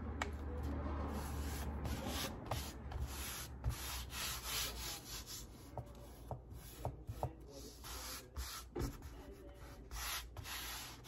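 Hands rubbing and smoothing a sheet of glued handmade paper flat onto a painted surface, a papery swishing that comes and goes in strokes, with a few small clicks.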